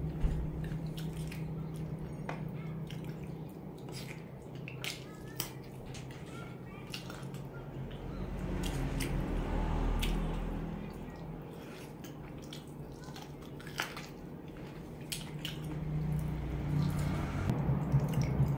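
Close wet eating sounds as beef rib meat is chewed and sucked off the bone by hand: scattered small wet clicks and lip smacks over a low steady hum.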